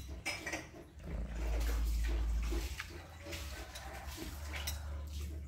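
Close chewing and mouth noises of a man eating rice and fried tempe, with a few light clicks of a metal spoon against a ceramic plate. A low rumble sets in about a second in and fades out about a second and a half later.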